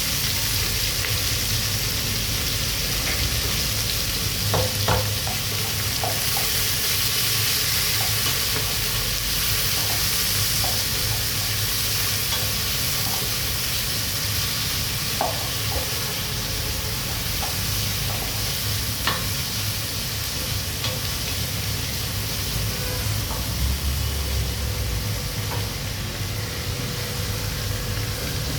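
Food sizzling as it fries in a pan, a steady hiss throughout, with a few sharp taps of a utensil against the pan.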